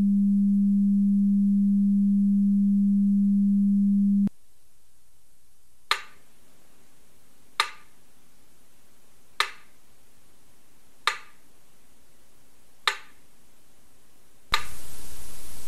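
A steady low electronic tone cuts off suddenly about four seconds in. Five sharp clicks follow, evenly spaced a little under two seconds apart, and near the end loud static hiss bursts in.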